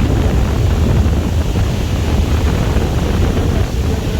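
Wind buffeting the microphone: a loud, steady low rumble with gusty flutter.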